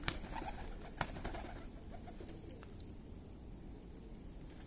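Domestic fighting pigeons cooing among the flock. Two sharp clicks about a second apart sound near the start.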